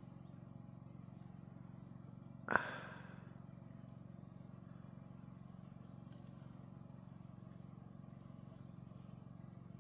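Several short, high, thin bird calls from birds feeding in juneberry bushes, over a steady low mechanical hum, with a single sharp knock about two and a half seconds in.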